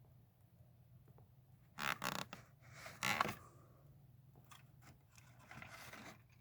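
Packaging being handled: short bursts of plastic scraping and rustling about two and three seconds in, and a softer one near the end, as the model hopper car is worked out of its clamshell.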